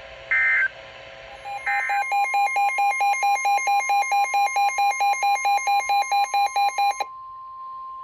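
Emergency Alert System tones. Two short warbling data bursts of the SAME end-of-message code close the previous warning. Then a loud electronic alert beep pulses about four times a second for some five seconds over a steady tone, and the beeping stops near the end while the steady tone goes on.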